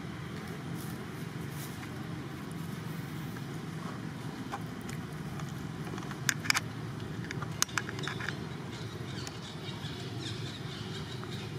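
Long-tailed macaques scuffling in dry leaf litter and twigs: a few sharp snaps and crackles about six seconds in and again near eight seconds, over a steady low outdoor rumble.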